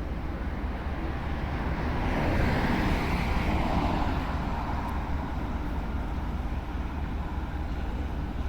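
City street traffic: a steady low rumble, with a vehicle passing about two seconds in and fading away a few seconds later.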